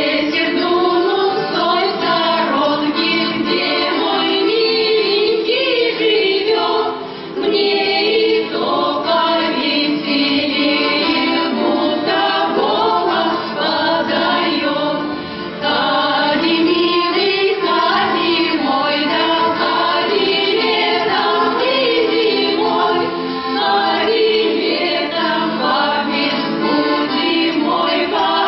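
Folk-ensemble choir singing a song together to accordion accompaniment, with short breaks between phrases.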